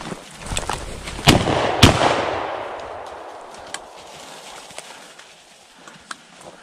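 Two quick shotgun shots about half a second apart, each followed by an echo that dies away over a second or so.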